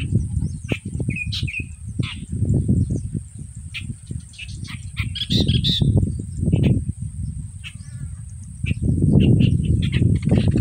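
Small birds chirping in short scattered calls, with a quick run of notes about halfway through, over irregular low rumbling gusts of wind buffeting the microphone.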